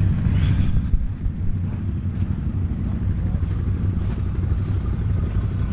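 Sherp amphibious ATV's diesel engine running steadily as the vehicle drives past and pulls away over packed snow.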